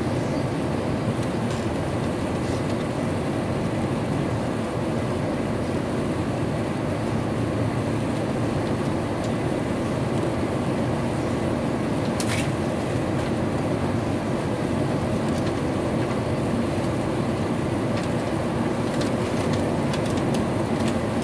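Steady low roar inside the cabin of an Airbus A350 XWB on final approach, from its Rolls-Royce Trent XWB engines and the airflow, with a brief click about twelve seconds in.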